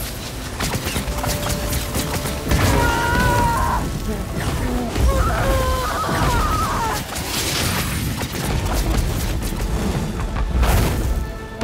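Film sound effects of a magical battle: repeated deep booms and crashing blasts over a continuous rumble, layered with musical score. Strained vocal cries rise above it twice, a few seconds in and again about halfway through.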